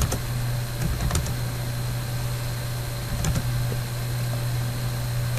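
Scattered keystrokes on a computer keyboard, a few sharp clicks typing a short phrase, over a steady low electrical hum.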